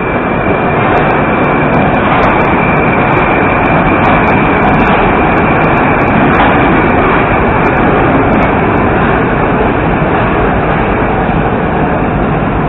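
Moscow Metro 81-765 "Moskva"-type train departing the station and running past, a loud steady rumble of wheels on rail and traction motors, with a thin high whine over it in the first few seconds.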